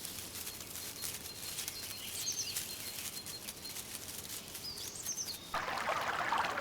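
Rainforest ambience: a bird gives short, high, looping whistled calls about every two and a half seconds over a thin steady high whistle and fine ticking. A louder hiss comes in about five and a half seconds in.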